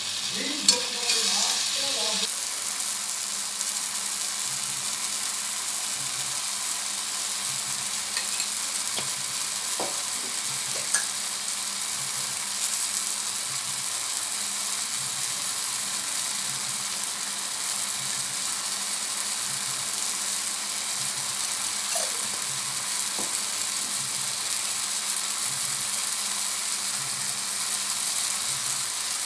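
Chopped tomatoes frying in oil in a pan, a steady sizzling hiss, with a few light knocks of a utensil against the pan.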